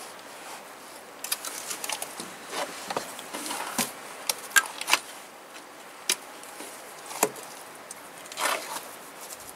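Bricklaying: a trowel scraping and knocking on bricks and mortar, an irregular string of short scrapes and sharp clicks.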